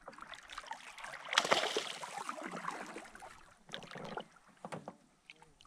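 A hooked bass thrashing and splashing at the water's surface beside the boat as it is landed, loudest about a second and a half in, followed by a few light knocks.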